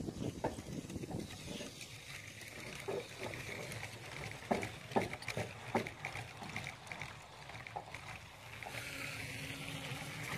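Motorised Lego trains running past on plastic track: a steady motor whine, with a run of sharp clicks from the wheels on the track about halfway through.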